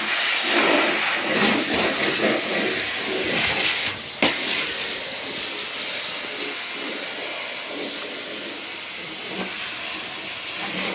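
Henry Hoover cylinder vacuum cleaner running with a steady hiss of suction while sucking up Orbeez water beads. Uneven rattling over the first four seconds, a sharp click about four seconds in, then a steadier, slightly quieter run.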